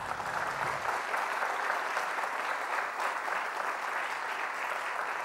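Studio audience applauding: steady clapping that starts at once and carries on without a break.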